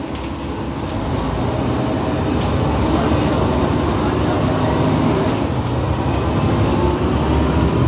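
Double-decker bus engine and running noise heard from the upper deck: a low, steady drone that grows louder over the first two or three seconds and then holds.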